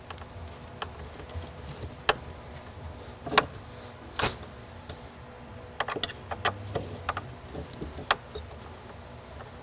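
Bolts being tightened by hand with a 4 mm Allen key on a bedliner-coated plywood cubby cover: scattered light clicks and taps of the key against the bolt heads and panel.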